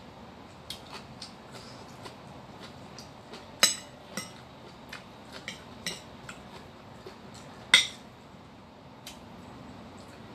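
Metal spoon clinking and scraping against a ceramic bowl while rice and greens are mixed: many light taps, with two sharper clinks about four seconds and about eight seconds in.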